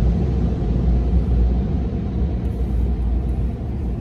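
Steady low rumble of a car heard from inside its cabin as it rolls slowly forward.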